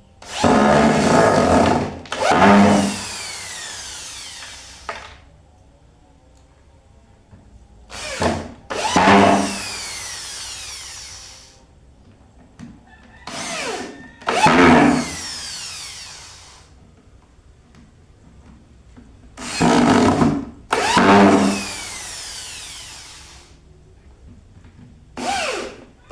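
Power drill driving bolts into a wooden table leg, run in five bursts about every five or six seconds. Most bursts are a brief pull of the trigger followed by a longer run that trails off in a falling whine as the motor spins down.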